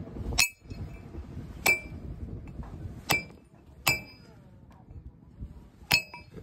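A farrier's hammer striking metal on a donkey's hoof while fixing a shoe: five sharp, ringing clinks at uneven intervals.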